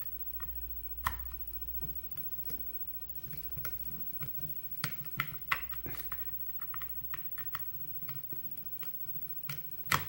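Scattered small metal clicks and taps from handling a Sargent lock cylinder and tools while it is being taken apart, with a faint low hum underneath for most of the time.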